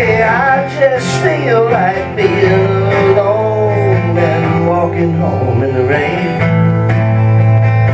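Live country song with acoustic guitar and a bass line, and a sung melody that slides and bends through long held notes between lines of lyrics.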